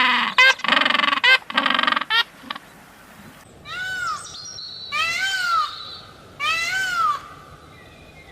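A goose honking in a quick run of loud calls for the first two seconds or so. After an abrupt cut, a different bird gives three separate higher, cat-like mewing calls, each rising and falling in pitch.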